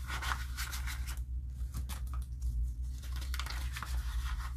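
Paper banknotes and a clear plastic binder pouch being handled, giving a soft rustling and scratching that is busiest in the first second. A steady low hum runs underneath.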